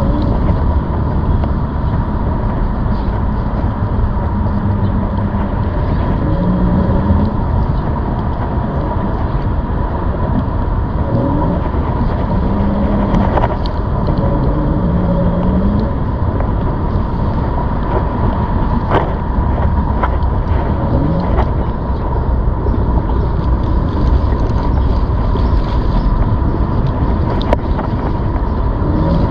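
ZOOZ electric bike riding along: steady wind and rolling noise on the microphone with a constant high whine running through it.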